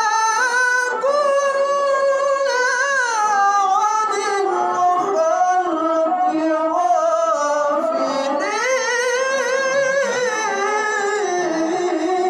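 A man's high-pitched, unaccompanied Quran recitation (tilawah), sung in long ornamented held notes that waver and glide; the line sinks lower around the middle and climbs again a few seconds later.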